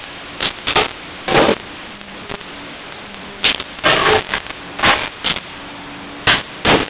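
Papers and small objects being handled on a conference table: about nine short, irregular rustles, scrapes and knocks over a steady hiss.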